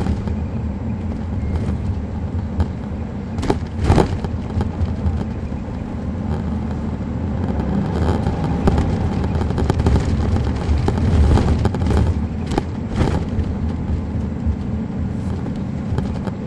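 2007 MCI D4500CL coach's Caterpillar C13 ACERT diesel engine running, heard from on board as a steady low rumble. A few sharp knocks or rattles sound about four seconds in and again later.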